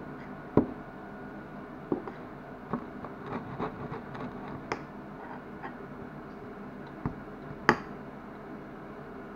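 A spoon knocking and clinking against a glass mixing bowl while stirring a thick mixture, in several separate strikes: the loudest about half a second in and near the end, with softer scraping between. A steady low background hum runs underneath.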